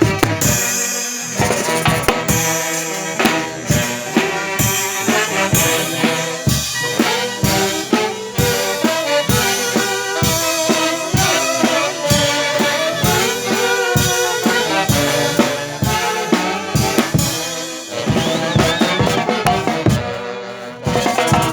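Band music with brass horns playing over a drum kit keeping a steady beat; the music dips briefly near the end, then carries on.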